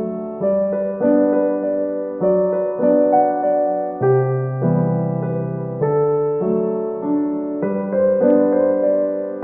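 Background music: gentle electric piano playing sustained chords that change about every second.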